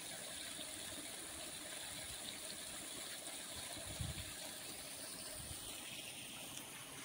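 Rainwater running steadily, with a low thump about four seconds in.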